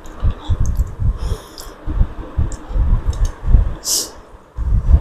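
Close-miked eating sounds: irregular chewing thumps with a few short, wet mouth clicks and smacks.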